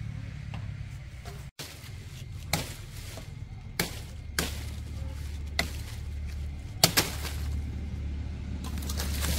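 Chopping: a blade strikes hard about six times at an irregular pace, over a steady low hum.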